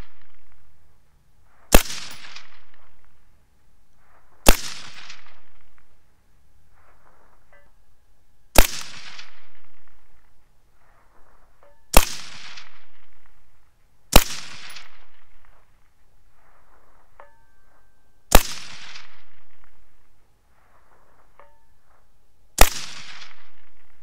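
Seven shots from a suppressed semi-auto AR-15 in .223, fired at an uneven pace a few seconds apart, each followed by about a second of rolling echo. After several shots a faint ring of the distant steel target being hit arrives a few seconds later.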